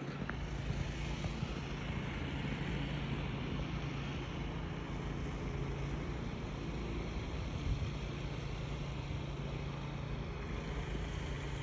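A snow-clearing machine's engine running steadily, a continuous drone with a low hum under it.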